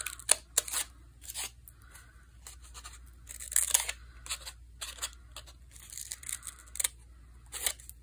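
Scissors snipping through a folded paper wing, cutting out small strips in a series of short, irregular snips.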